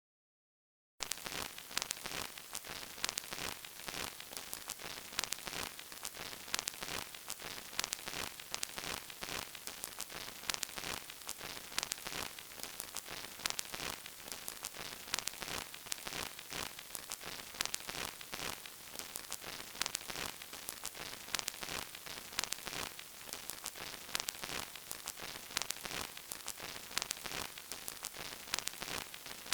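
Old vinyl record crackle: steady surface hiss with dense, irregular clicks and pops, starting about a second in.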